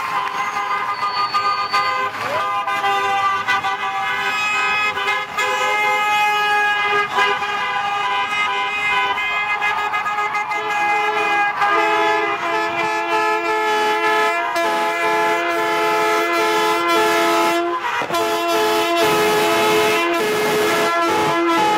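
Vehicle horns from a procession of fire engines and school buses, held in long, overlapping blasts that form a steady chord with hardly a break. The mix of horns shifts twice, about halfway through and again near the end.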